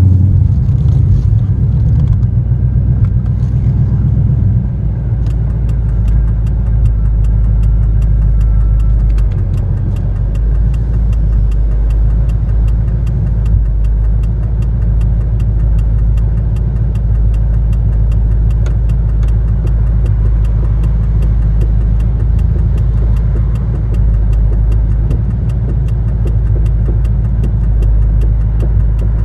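Car engine idling steadily at a stop, heard from inside the cabin as a low, even hum. A faint, regular ticking runs on through most of it.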